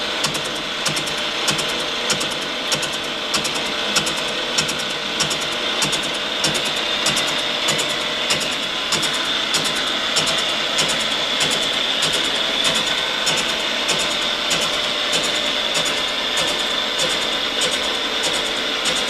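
1955 Brown & Sharpe No. 2 universal milling machine running under power feed, its 5-inch carbide-tipped shell mill turning at about 95 rpm through a face cut. A steady mechanical whir from the spindle and feed gearing, with regular sharp clicks about twice a second.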